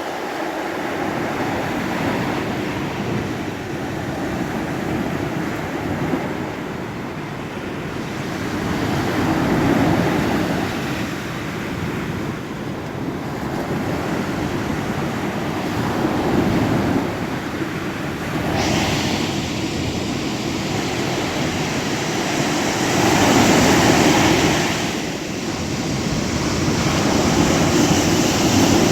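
Ocean waves breaking and washing ashore, the surf swelling louder every several seconds. About two-thirds of the way through the wash turns brighter and more hissing.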